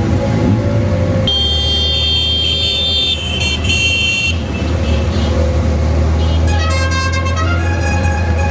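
Motorcycle engines running steadily in a slow-moving group ride. Vehicle horns toot over them: a high horn from about a second in to about four seconds, then a run of horns at different pitches from about six and a half seconds.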